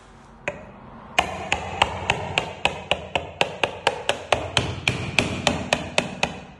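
A screwdriver jabbed repeatedly into the lid and inner hardener compartment of a PE 460 two-component adhesive can, piercing it so the two parts can mix. It makes one click, then a steady run of sharp taps about four a second.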